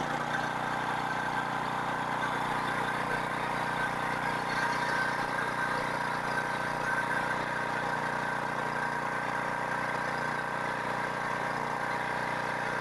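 Powerboss 5,600-watt gas generator with a Briggs & Stratton engine, running steadily at constant speed.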